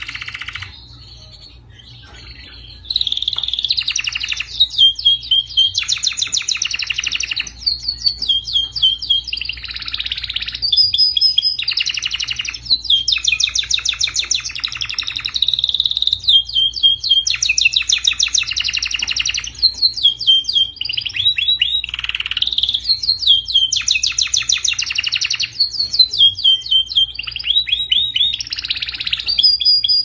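Domestic canary singing a long, continuous song of fast rolling trills and repeated phrases broken by short high glides, starting about three seconds in after a quieter opening. A faint low hum runs beneath it.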